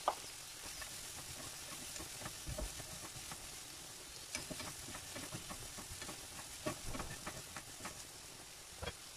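Sliced red onion and green capsicum frying in butter in a non-stick pan: a quiet steady sizzle, with scattered clicks and scrapes of a spatula stirring them.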